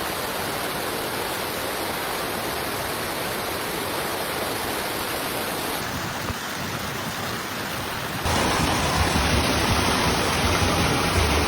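Steady rushing of water. It gets louder with more low rumble from about eight seconds in.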